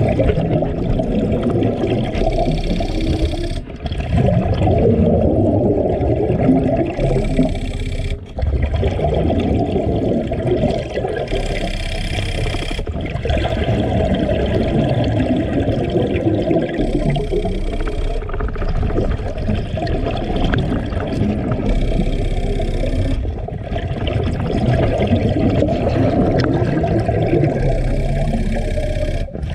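Scuba divers breathing underwater through regulators: a continuous rumble of exhaled bubbles, with a hiss from the regulator on each inhale every five seconds or so.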